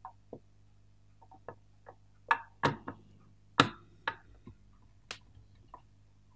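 Metal parts of a vintage Mitsubishi hand-cranked pencil sharpener clicking and knocking as the helical cutter assembly is pushed into the housing and seated: about a dozen irregular clicks, the loudest around the middle.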